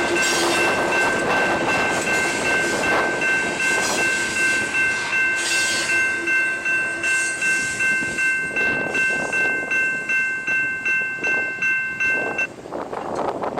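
BNSF freight train's railcars rolling past a grade crossing, with the crossing warning bell ringing at about two strokes a second. The bell cuts off suddenly near the end, leaving wind noise.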